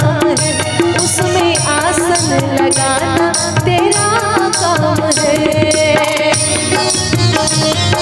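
A woman singing a Hindi devotional bhajan (mata bhajan) over a steady, regular hand-drum beat, with a melodic line that slides and bends between notes.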